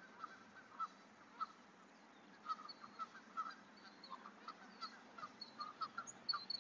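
Canada geese honking faintly in the distance: a string of short, irregular calls.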